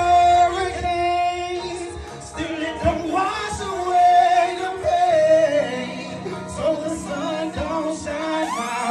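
A song's backing track playing loud through a PA, with a melodic sung vocal carrying long held notes over it.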